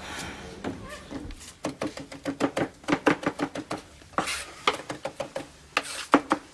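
Kitchen knife chopping vegetables on a chopping board, in quick runs of sharp strokes about six a second.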